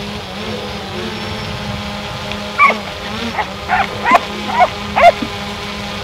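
A dog barking, about five sharp barks in quick succession starting nearly three seconds in, over the steady buzz of a small drone's propellers.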